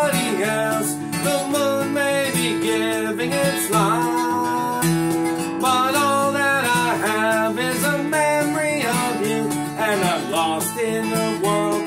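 A man singing a bluegrass song in the key of A while strumming chords on a steel-string acoustic guitar.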